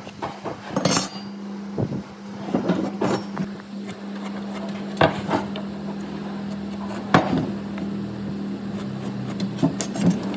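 Workshop clatter: irregular knocks and clinks of tools on wood and metal, the sharpest about 5 and 7 seconds in, over a steady low machine hum.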